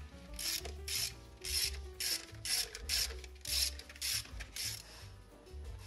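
Hand socket ratchet clicking in about nine short back-and-forth strokes, about two a second, as valve cover bolts are run down. It stops near the end.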